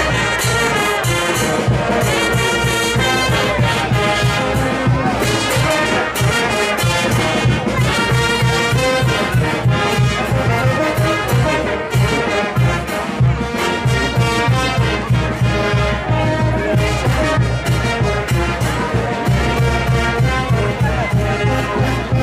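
Brass band playing lively Andean festival dance music, with trumpets and trombones over a steady low beat, continuous and loud.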